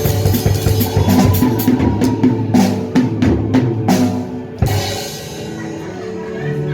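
Music with a drum kit: bass-drum and snare hits over sustained pitched notes. The drumming stops about two-thirds of the way through, leaving the held notes.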